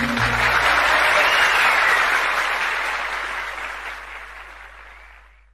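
Audience applauding at the end of a live song, with the band's last low notes dying away in the first half-second; the applause fades out steadily to nothing by the end.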